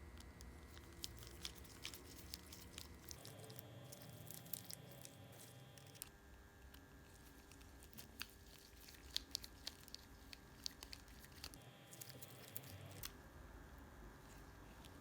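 Faint, scattered small clicks and ticks of small repair tools working on an iPhone SE screen assembly while its LCD back plate is taken off, over a low steady hum.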